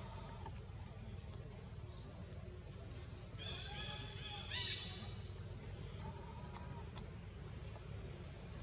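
Macaque calls: two high-pitched squealing calls about three and a half and four and a half seconds in, the second louder, over a steady low rumble.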